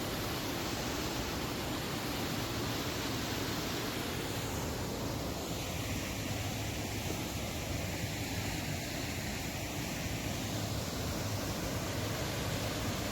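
Steady rushing of whitewater and waterfalls in the Maligne River canyon, its hiss thinning briefly in the middle.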